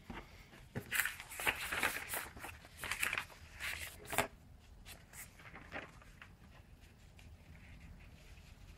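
Pen scratching on paper as a word is handwritten: a run of quick scratchy strokes over about three seconds, then a few fainter strokes.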